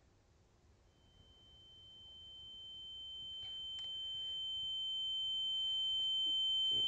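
A steady high-pitched ringing tone fades in from about a second in and keeps growing louder: an ear-ringing sound effect for a character who has been knocked out and is coming to.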